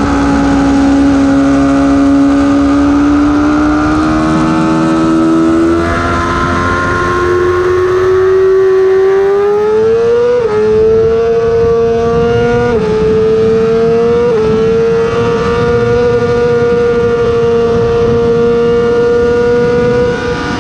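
Yamaha R6 inline-four engine pulling hard under full throttle, its pitch climbing steadily out of a corner. Then it shifts up three times in quick succession, about halfway through and twice more about two seconds apart, each a brief dip in pitch, before holding a high, steady note in top gear on the straight.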